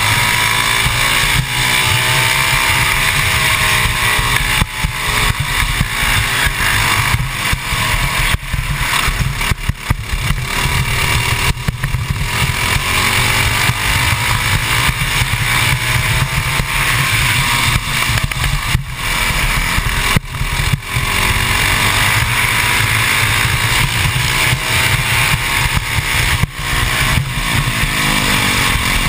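Modified 196cc Honda GX200-type single-cylinder four-stroke kart engine at racing speed, its pitch sweeping up and down several times as the kart accelerates and lifts off through the corners.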